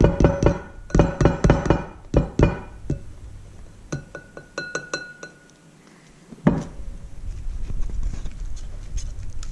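Wire whisk clinking quickly against a mixing bowl, the bowl ringing with each strike, for the first couple of seconds; a few lighter clinks follow. A single thump comes about two-thirds of the way in, then low handling noise.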